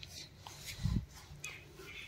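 Cloth rustling and rubbing as greasy combine cutter motor parts are wiped by hand, with one dull low thump just before a second in.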